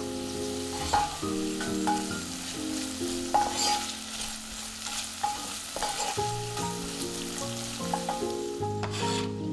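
Vegetables sizzling in olive oil in a pot while being stirred, with occasional sharp clicks of the utensil against the pot, over soft background music.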